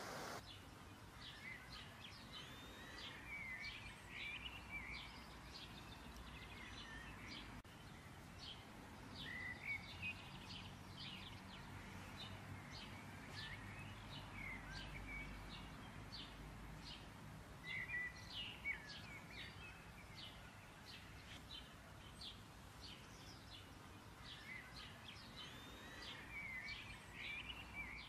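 Small birds chirping faintly, a scatter of short chirps and quick rising and falling whistles in clusters, over a faint low hum.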